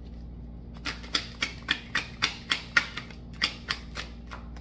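A deck of oracle cards being shuffled in the hands: a quick, even run of sharp card slaps, about four a second, starting about a second in.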